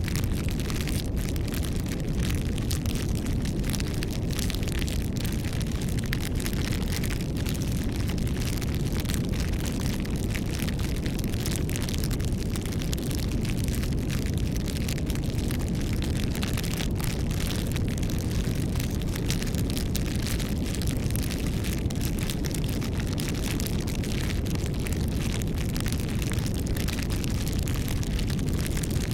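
Bonfire burning, with many small crackles and pops over a steady low rumble of flame.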